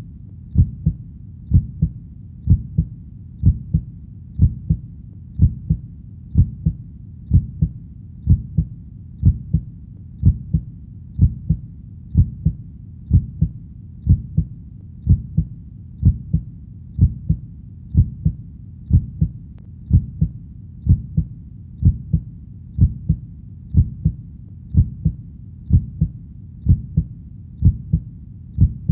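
Heartbeat: steady, low double thumps (lub-dub), about one beat a second.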